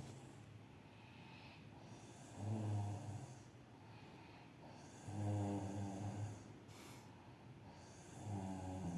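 A sleeping person snoring: three low, rasping snores about every three seconds, each lasting roughly a second, with softer breathing between them.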